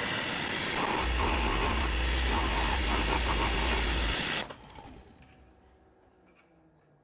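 Wood lathe spinning a mahogany blank while a turning tool cuts it down, shavings hissing off the wood, until the tool is lifted away sharply about four and a half seconds in. The lathe's motor hum then falls slowly in pitch as it winds down.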